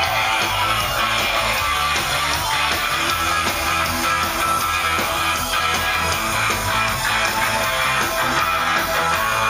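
Rock band playing live and loud, guitars strummed to the fore, in an instrumental stretch before the vocals come in.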